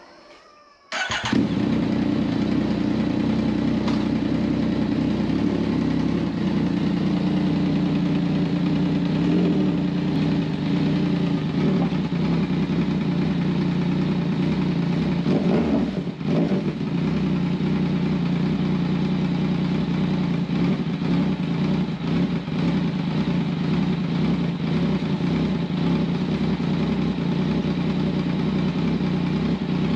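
Yamaha MT-09's inline three-cylinder engine idling steadily; it comes in suddenly about a second in.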